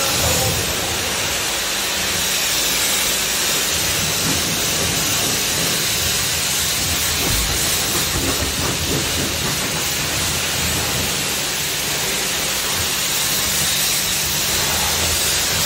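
Water jet spraying onto a car as it is washed: a steady loud hiss, with a low hum underneath.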